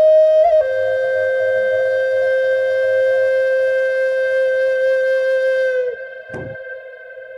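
Native American flute holding one long, steady note, with quick grace-note flicks at the start and a small step down in pitch under a second in, fading out about six seconds in. A single beat on a large pow wow hand drum follows.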